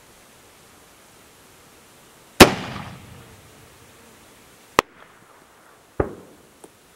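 Rifle shots fired at long range: a loud sharp crack about two and a half seconds in that rings out in a long echo, a short sharp crack near five seconds, and another crack about six seconds in with a shorter echo.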